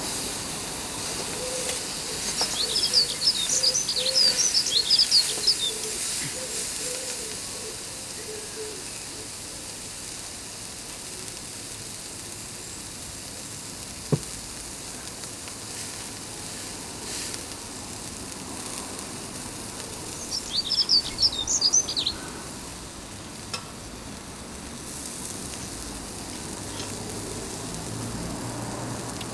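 A thick steak sizzling steadily as it sears on the grill of a steel Firebox stove. A bird chirps in quick bursts a few seconds in and again about twenty seconds in, and there is one sharp click near the middle.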